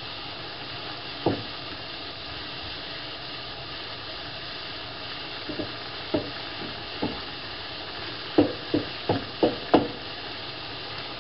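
Chicken, chopped tomato and rice sizzling in a nonstick frying pan while a wooden spatula stirs them, with sharp knocks of the spatula against the pan: one about a second in, a few in the middle, and a quick run of five near the end.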